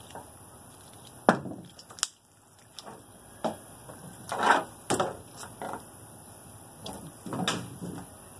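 Sharp cracks and knocks with rougher handling sounds as a skinned rabbit's legs are cut and snapped off at the joints. There are a handful of separate cracks, the loudest about a second and a half in, and longer scraping sounds near the middle and again near the end.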